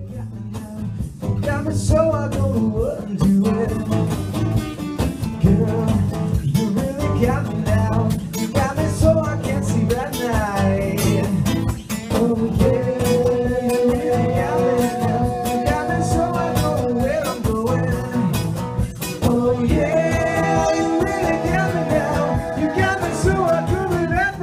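Live acoustic guitars strumming chords together while a man sings lead, with one long held note in the middle.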